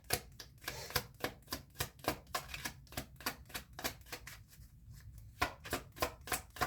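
Tarot cards being handled and flipped through: a quick series of crisp card clicks, about four a second, easing off briefly about four seconds in.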